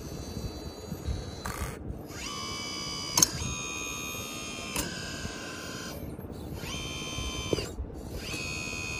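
Kabolite K961-100 1/18-scale hydraulic RC excavator's pump whining in repeated bursts of a second or more, each rising in pitch as it spins up and dropping away as it stops, as the boom, arm and bucket are worked. A sharp click about three seconds in and a couple of fainter ones from the mechanism.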